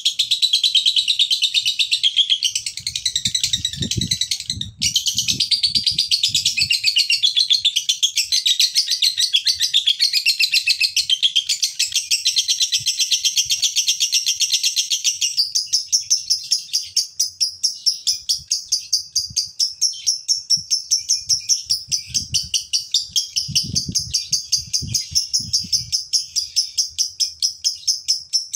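Male Fischer's lovebird singing its long, unbroken ngekek chatter: a fast stream of shrill, buzzy chirps. About halfway through the chirps turn more evenly spaced and slightly higher.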